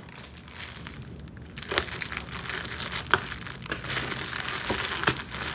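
Plastic Amazon mailer bag crinkling and crackling as it is squeezed and tugged at by hand to pull it open, louder from about two seconds in.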